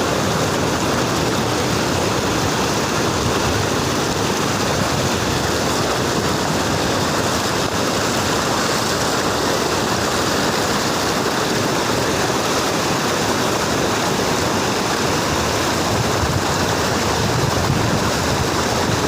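Floodwater rushing steadily, a loud even roar of flowing water.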